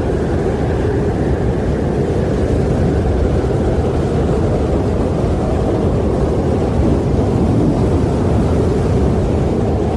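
Wind blowing steadily: a low, continuous rush without gusts or breaks.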